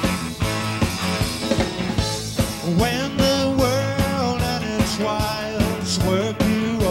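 Live rock and roll band playing an up-tempo jump number, heard straight off the soundboard mix: a steady drum beat with bass and guitar. A lead melody line comes in about three seconds in.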